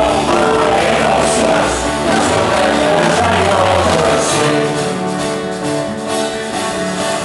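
Live band playing and singing, with several voices at microphones over the instruments, recorded from within the audience.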